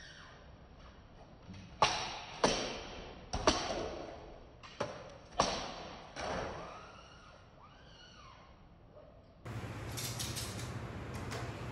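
Katana cutting through rolled tatami mats in tameshigiri: about six sharp cuts in quick succession, with the cut pieces thudding down.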